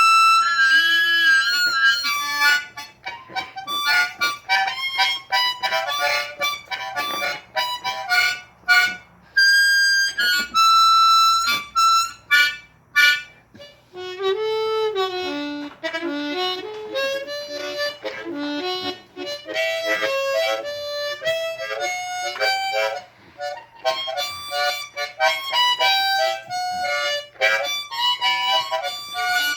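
Solo Hohner Marine Band diatonic harmonica in D, played in first (straight harp) position. It starts with held high notes and quick runs, then from about halfway moves down to lower notes that bend and waver in pitch.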